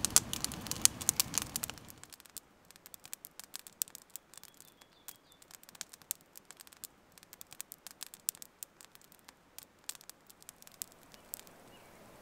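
Wood campfire crackling, with frequent sharp, irregular snaps and pops. For the first two seconds a louder rushing hiss sits under the crackle, then drops away.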